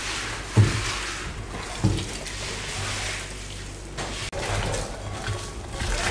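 Hands kneading and squeezing salted, spiced raw meat chunks in a glass bowl: wet squelching and squishing, with two short thuds in the first two seconds.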